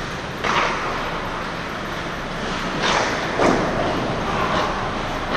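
Ice hockey play heard from on the ice: a steady rush of noise with three short, sharp scrapes, one about half a second in and two close together around three seconds in, the sound of skate blades and sticks on the ice.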